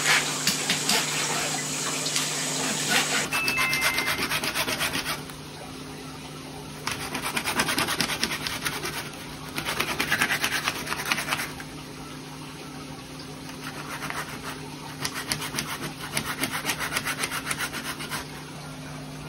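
Knife working through a giant sea bass: for the first three seconds or so, quick scraping strokes as the blade skims the scales and skin off; then a long filleting knife rasping along the backbone in quick strokes, in three spells with pauses between. A steady low hum runs underneath.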